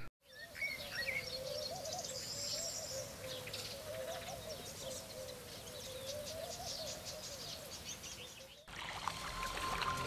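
Birds calling: a low, wavering call that rises and falls throughout, with high-pitched chirps and twitters over it. Music comes in near the end.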